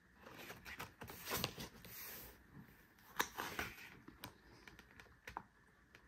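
Pages of a stiff-bound album photobook being turned and handled: faint paper rustles with several sharp clicks and taps.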